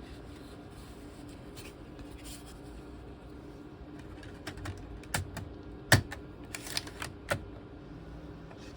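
Plastic clicks and clacks of a CD being swapped in a laptop's CD-ROM drive: a cluster of sharp clicks about halfway in, the loudest near six seconds, over a steady low hum.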